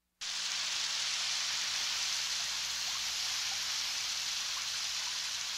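Steady rain falling: an even hiss that starts abruptly just after the beginning, with a few faint small ticks.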